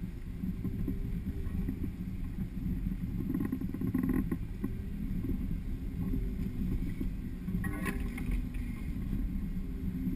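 Jeep JK Wrangler driving slowly over a rough dirt trail, its engine and drivetrain giving a steady low rumble inside the cab, with a sharp knock about eight seconds in.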